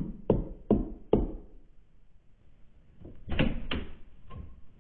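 Knuckles knocking on a front door, four sharp knocks about 0.4 s apart, followed about three and a half seconds in by a couple of heavier bumps.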